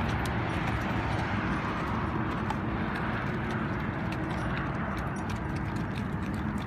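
Horses' hooves clip-clopping at a walk on a dirt track, several horses at once, over a steady low noise.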